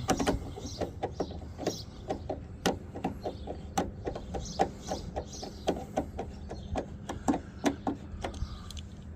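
Rapid light clicking, about three or four clicks a second, as a hand screwdriver drives the screws of a truck door latch.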